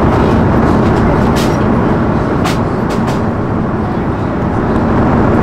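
Steady cabin rumble of an Airbus A340-300 in cruise, from its four engines and the airflow. A few light clicks of a small cardboard box being handled close by sound about a second in and again near the middle.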